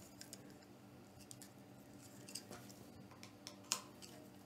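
Faint clicks and taps of the plastic housing of a blö portable fan being handled and taken apart by hand, the loudest click near the end, over a low steady hum.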